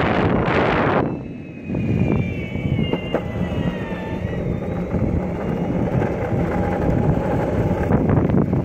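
Longboard wheels rolling on asphalt, a steady rumble, with wind buffeting the microphone. A louder gust of wind noise comes in the first second, with a brief lull just after.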